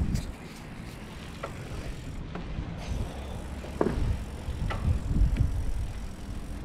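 Bicycle being ridden: a low rumble of wind and riding noise on the microphone, with a few short clicks and a falling squeak a little under four seconds in.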